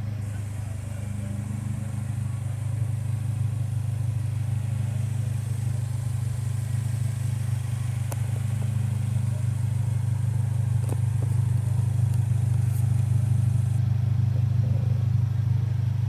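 A 2017 Polaris Slingshot's 2.4-litre four-cylinder engine idling steadily through a custom exhaust.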